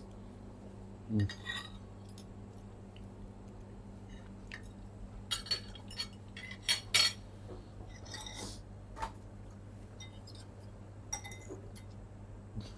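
Spoons and forks clinking against bowls and plates while eating: a few scattered short clinks, the loudest around seven seconds in, over a steady low hum.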